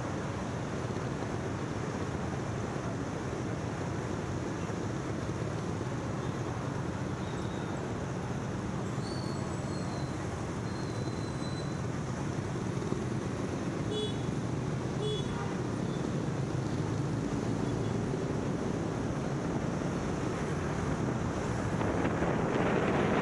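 Steady city traffic noise from engines and motorbikes around a busy intersection, with two short horn toots about fourteen and fifteen seconds in. Near the end the noise grows louder as the car carrying the microphone moves off and wind starts to rush over it.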